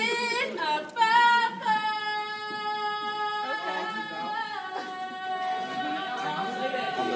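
A woman's voice singing a cappella in long held high notes, dropping to a lower held note about halfway through.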